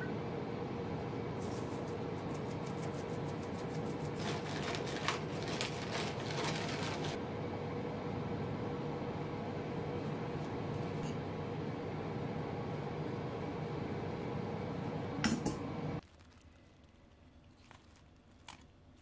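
Quiet kitchen handling while a salad is dressed: light clicks and taps of a spoon, a vinegar bottle and a seasoning jar, with a quick run of small clicks in the first several seconds, over a steady faint hum. Near the end the sound cuts out to near silence.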